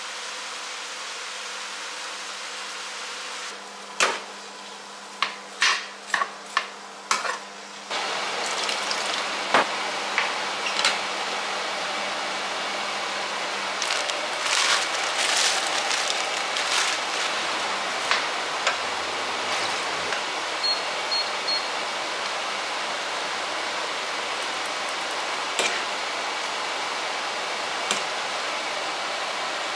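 Vegetable stir-fry mix sizzling as it fries in oil in a frying pan, with a spatula knocking and scraping against the pan. A run of sharp clicks comes a few seconds in, the sizzling starts loud about 8 seconds in, and three short electronic beeps sound about two-thirds of the way through.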